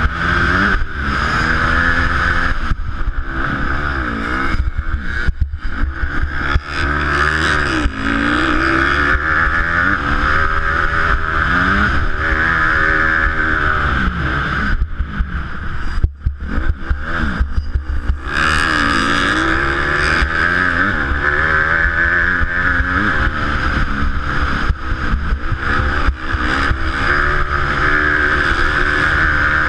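Motocross dirt bike engine heard from the rider's helmet, revving up and dropping back again and again as the throttle is opened and rolled off around the track. The engine falls away briefly about halfway through before pulling hard again.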